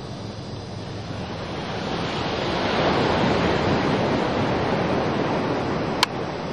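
Ocean surf: a wave breaking and washing in, the rush swelling to a peak about three seconds in and staying strong. A sharp click just after six seconds.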